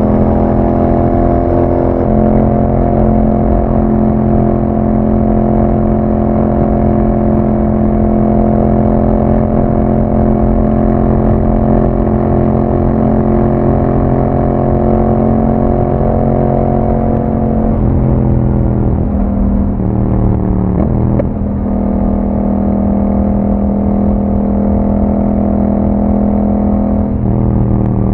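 2021 Yamaha MT-07's 689 cc parallel-twin engine running through an Akrapovic exhaust on the move. It holds a steady note for most of the first half. Its pitch then drops in a few steps past the middle, settles steady again, and falls once more near the end.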